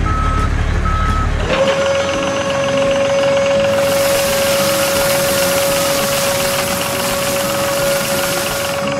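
Miniature construction vehicle working: two reversing beeps over a low engine rumble, then a steady, even-pitched motor whine. A hissing noise joins the whine a few seconds in and stops shortly before the end.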